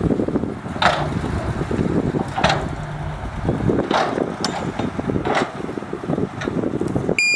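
Crawler bulldozer working dirt: a diesel engine running under heavy, grinding track and dirt noise, with a sharp metallic squeak about every second and a half. Right at the end a reversing alarm starts beeping.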